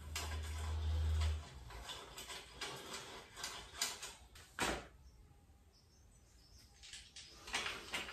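Scattered small clicks and knocks of screws and hand tools being handled while bolts are checked and refitted, with a steady low hum that stops about one and a half seconds in.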